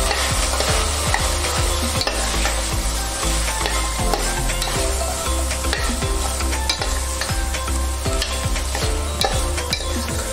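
A steel spoon stirring and scraping mutton, shallots and spice powders in an open pressure cooker, with the spoon clicking against the pot every so often, while the meat sizzles as it fries.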